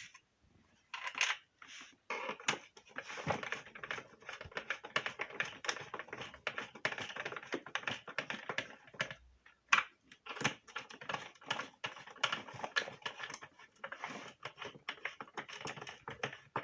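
Rapid, irregular clicking and scraping of screws being turned by hand into the plastic housing of a vacuum cleaner.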